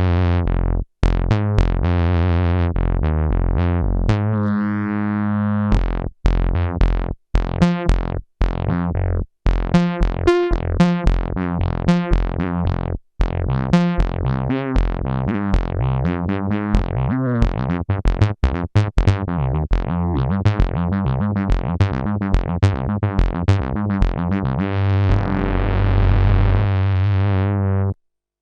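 Expressive E Osmose 49 keyboard synthesizer being played: a fast run of short, sharp synth notes over sustained bass notes, broken by several brief drop-outs. It stops abruptly near the end.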